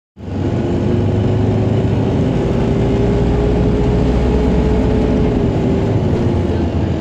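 An Optare Solo SR single-deck bus on the move, heard from inside the cabin: steady engine and road rumble. Over it runs a whine that climbs slightly, then drops back a little about five to six seconds in.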